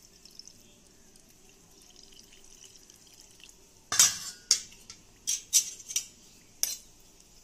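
Milk poured faintly into flour in a steel bowl. About four seconds in comes a loud clatter, then a handful of sharp clinks of a metal spoon and bowls knocking together.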